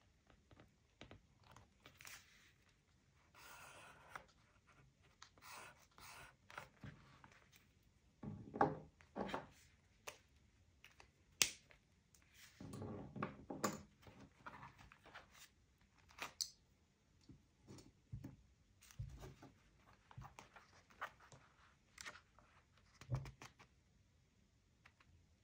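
Paper and stationery handled close to the microphone: irregular rustles, crinkles and soft taps. The longer rustling stretches come about eight and thirteen seconds in.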